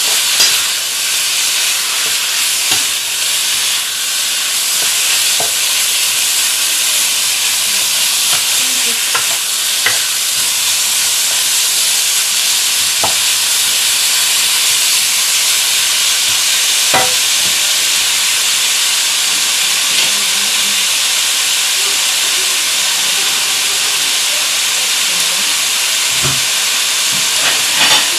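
Chicken and diced onions sizzling steadily in hot oil in a pan while being stirred, with scattered sharp clicks of the utensil knocking against the pan.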